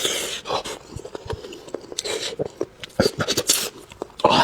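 Close-miked eating sounds: mouth noises of chewing and crunching, with many irregular clicks and short noisy bursts.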